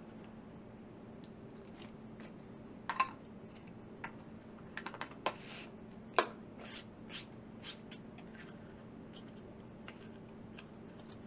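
Light clicks and taps of a small painted craft box being handled and set down on a tabletop, scattered irregularly, the sharpest about three and six seconds in. A faint steady low hum runs underneath.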